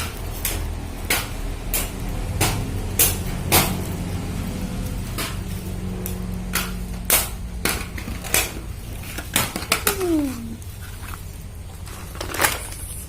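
Scattered sharp knocks and clatters at uneven intervals, with a short falling cry about ten seconds in.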